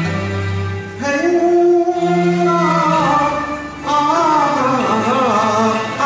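A man sings a Cantonese opera song into a hand microphone over its instrumental backing track. The accompaniment plays alone for about a second, then his voice enters with long, wavering held notes, pausing briefly near the middle before going on.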